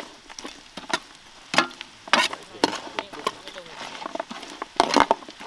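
Kitchen utensil knocking and scraping against a pan, a string of separate sharp clicks and clanks, with faint sizzling between them.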